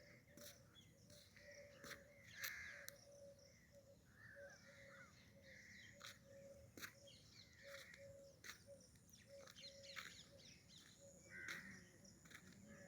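Faint birdsong: harsh calls higher up, and a short low note repeated about twice a second. A few sharp clicks.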